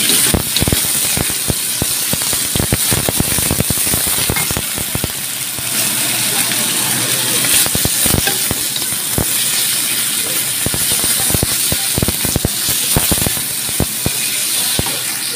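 Wooden spatula knocking and scraping against a steel wok in quick, irregular strokes as cucumber, carrot and wood ear mushroom are stir-fried, over a steady sizzle of the vegetables frying in oil.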